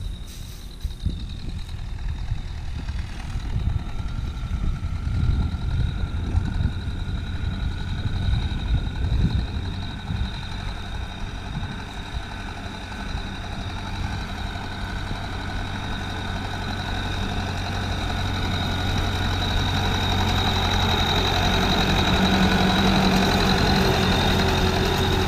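Wheeled farm tractor's diesel engine running steadily while pulling a finger-wheel hay rake, growing louder as it comes closer. Wind on the microphone and some bumps are heard in the first few seconds.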